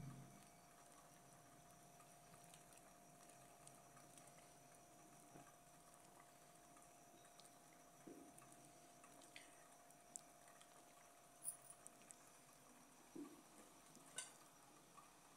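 Near silence with a faint steady hum, broken by a few faint scattered taps in the second half: a wooden spoon stirring soup and knocking lightly against the side of an aluminium pot.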